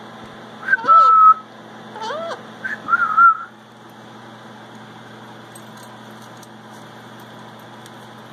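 Hawk-headed (red-fan) parrot giving three short whistled calls in the first few seconds: a gliding note that settles into a held tone, a rising-and-falling call, then a wavering held whistle. The calls sit over a faint steady hum.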